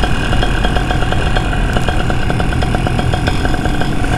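Paramotor engine running steadily with its propeller gone, a fast regular pulsing in its note, over the rush of wind.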